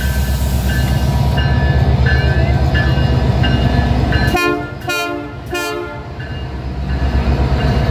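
Diesel locomotives of a passing train rumbling by close to the track, the engine noise dropping a little past halfway as the units go by. Three short horn blasts follow in quick succession.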